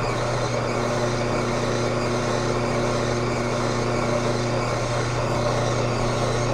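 Samson Advanced horizontal single-auger slow juicer running empty: an even, steady motor hum with a whir over it. It is loud enough to peak at 88 dB on a phone decibel app.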